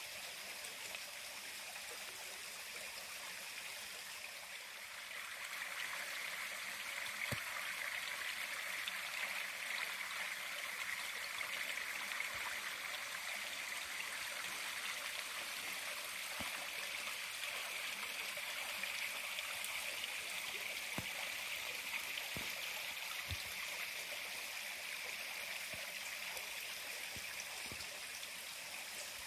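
A stream rushing, a steady hiss of flowing water that grows louder about five seconds in and stays up.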